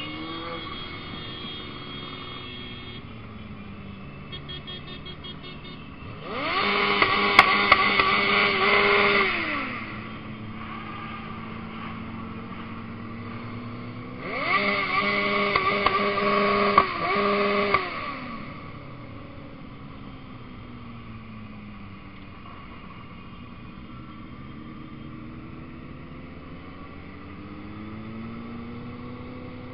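Motorcycle engines running on a group ride, their pitch rising and falling with the throttle. Twice, about six seconds in and again about fourteen seconds in, an engine is revved up loud, holds a high steady note for about three seconds, then drops back.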